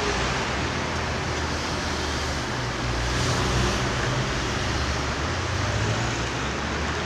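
Steady street traffic noise: an even hiss with a low rumble of passing vehicles.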